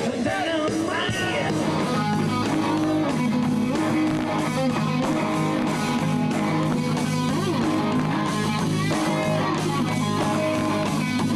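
Live rock band playing loudly: strummed electric guitar over bass and a steady drum beat.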